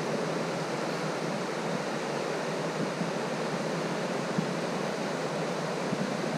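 Steady rushing of a fast-flowing river current, an even wash of water noise with no distinct events.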